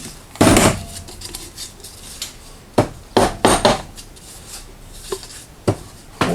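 Metal hand tools and small parts clinking and knocking on a workbench in a handful of separate clatters, loudest about half a second in and again around three seconds, with handling rustle between, while sheet metal screws are set by hand into a drain pipe and Delrin part.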